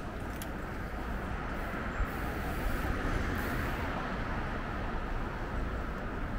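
Steady road and traffic noise heard from a moving electric bike on a city road: an even hiss over a low rumble, with a small knock about two seconds in.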